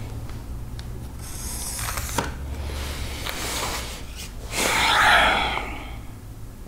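Sheets of paper rustling and shifting on a tabletop, with a small click, then one heavy sigh about a second long, the loudest sound, a frustrated exhale.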